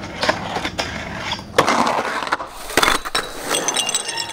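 A run of sharp metallic hits and clanks, with a burst of many high, short metallic clinks near the end.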